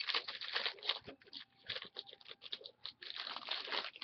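A stack of hockey trading cards being flicked through by hand: quick papery clicks and rustles, busiest at the start and again about three seconds in.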